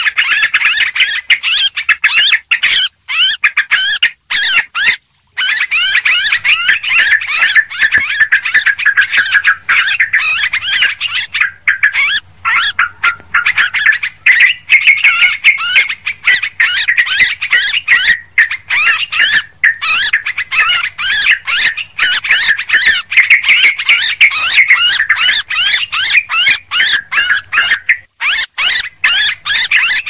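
Yellow-vented bulbuls (trucuk) chattering noisily in a dense run of quick, bubbly calls, with a couple of short breaks in the first few seconds.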